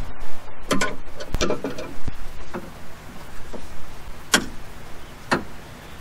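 About six scattered sharp clicks and light metal knocks of hardware being fitted as a rebuilt hydraulic ram for a convertible top is seated in its mount, the crispest two about four and five seconds in.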